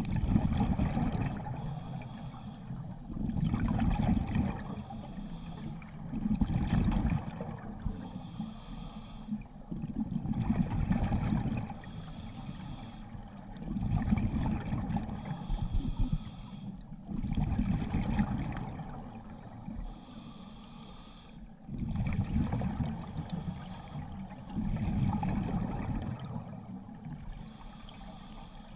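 Scuba diver breathing through a regulator underwater: hissing inhalations alternate with low, rumbling exhaled bubbles, about one breath every three to four seconds.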